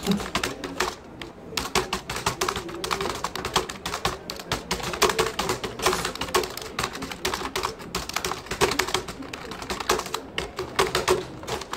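Fast typing on a computer keyboard: a dense, uneven run of key clicks.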